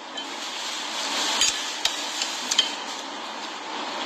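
Metal spoon clinking and scraping against a plate of rice. There are a few sharp clinks and knocks between about one and a half and two and a half seconds in, over a steady hiss.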